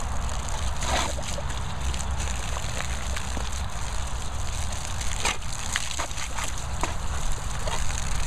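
Garden hose spraying a jet of water across grass: a steady splashing hiss, broken by a few short splashes.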